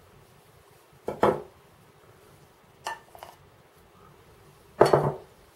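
Wooden spoon scraping and knocking fat out of a plastic tub and a small dish into a plastic mixing bowl: a few short clatters, the loudest near the end.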